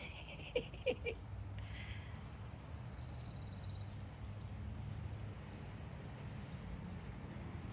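A small bird gives a fast, dry trill lasting about a second and a half, a few seconds in, over a low steady background hum. A few short chips come in the first second.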